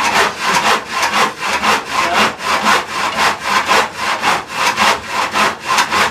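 Hand saw cutting through pine boards in a steady rhythm of quick back-and-forth strokes, about three a second.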